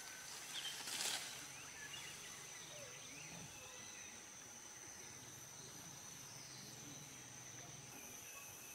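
Faint forest ambience with a steady high-pitched insect drone and scattered faint chirps, and a brief crackle about a second in.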